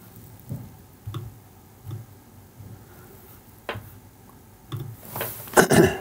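Sparse soft clicks and taps from a computer mouse and keyboard, spaced a second or so apart, with a louder short burst of noise near the end.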